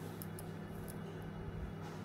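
Steady low room hum with a few faint, short ticks.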